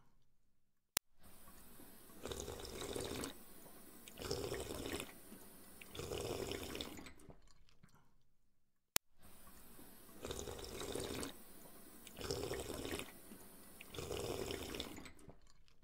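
Looped water sound effect: swells of watery noise about every two seconds, the whole pattern repeating every eight seconds, with a sharp click each time the loop restarts.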